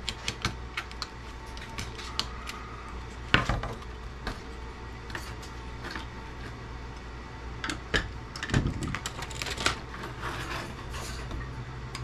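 Hand tools working parts off a CB radio circuit board: a run of irregular sharp clicks, snaps and metallic clinks as pliers grip, cut and pry components. One snap about a third of the way in is the loudest, and a busier cluster follows about two-thirds of the way through, over a steady low hum.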